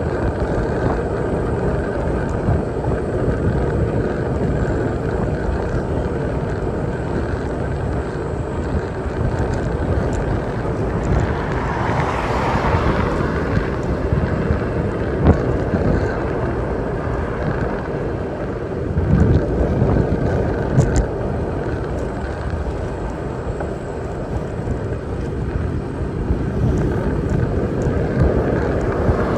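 Steady rush of wind over the microphone and road noise from a bicycle riding along a city road. About twelve seconds in, a louder swell rises and fades, and there are a few brief low thumps later on.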